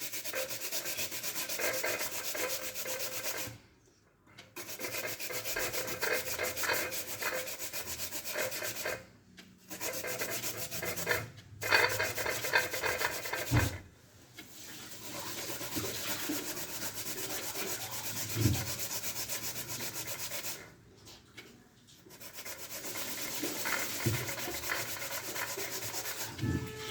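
White turnip being grated by hand on the fine side of a grater: a continuous rasping scrape in long runs of strokes, broken by a few short pauses, with an occasional dull knock.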